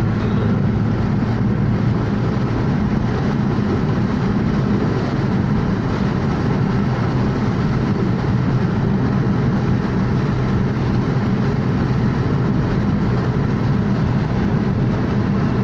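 Steady drone of a car driving along a motorway, heard from inside the cabin: a constant deep mix of tyre and engine noise that stays even throughout.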